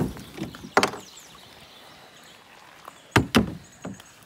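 Hollow knocks against the plastic hull of a sit-on-top kayak as gear is handled and the paddle is laid across it: a rustle at the start, one sharp knock about a second in, then two quick knocks and a lighter one near the end.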